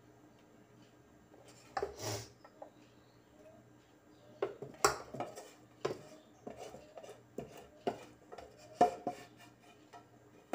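Slotted spoon scraping and knocking against a non-stick frying pan and an aluminium cuscuz steamer pot as filling is scooped from one into the other: a dozen or so irregular knocks and short scrapes, the loudest about two, five and nine seconds in.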